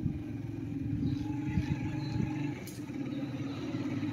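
An engine idling steadily, a low pulsing hum, with a few dull low bumps about halfway through.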